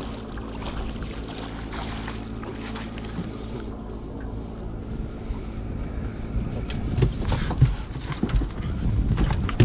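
A hooked fish splashing beside an aluminium boat and being scooped into a landing net, then knocks and thumps as the net and fish come aboard, loudest in the last few seconds. Under it runs the low, steady hum of the idling outboard.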